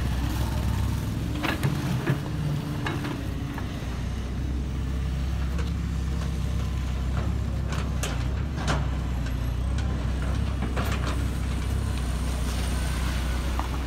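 JCB tracked excavator's diesel engine running steadily with a low drone, with a few short knocks scattered through it.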